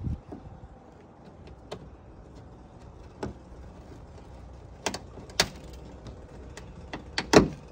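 Plastic push-pin trim clips being pried out of a car's trunk lid liner with panel clip pliers: a series of sharp clicks and snaps a second or two apart, the loudest a quick pair near the end.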